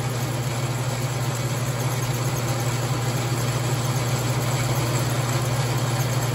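Logan lathe running steadily with a small milling cutter taking a flat off a workpiece held in the lathe milling attachment, fed slowly by hand on the cross feed: a steady low hum with a broad hiss over it.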